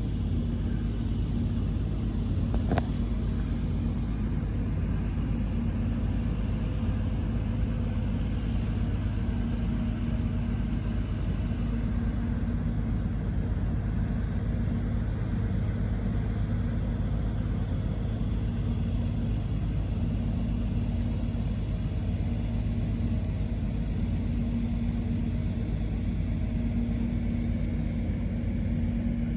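Engine-driven flood pumps running steadily: an even mechanical hum over a low rumble, with a single click about three seconds in.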